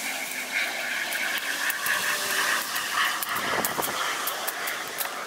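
Corded electric cutting tool running as brush is cut back, a steady motor whine that wavers with the load, with snapping clicks of twigs and branches.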